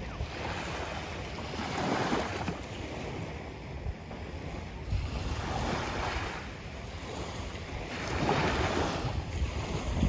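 Small waves washing in at the shore, a swell of surf about every three seconds, with wind rumbling on the microphone.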